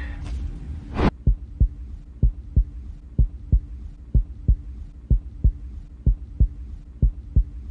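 Heartbeat sound effect: a steady lub-dub double thump about once a second over a low hum, following a short sharp hit about a second in.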